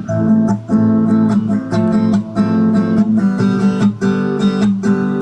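Acoustic guitar strumming chords in a steady, even rhythm, a song's instrumental lead-in.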